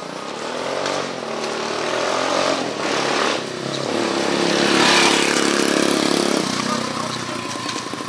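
A small engine running close by, rising in pitch in the first second, loudest about five seconds in, then cutting off abruptly.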